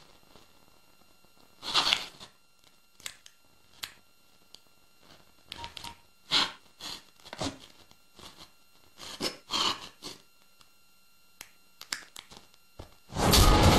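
Sparse soft clicks and a few short breathy sounds from a woman handling a mobile phone. About a second before the end comes a sudden loud, deep burst of sound.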